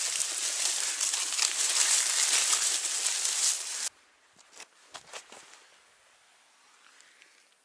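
Dry fallen leaves crunching and rustling underfoot and under the tyres of a bicycle being pushed through leaf litter, a dense steady crackle. It cuts off suddenly about four seconds in, leaving near silence with a few faint ticks.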